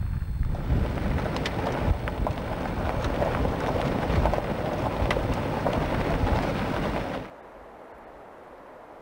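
Off-road vehicle driving over a stony riverbed track: tyres crunching on gravel with scattered stone clicks, under heavy wind rumble on the microphone. About seven seconds in it cuts off abruptly to a much quieter steady hiss.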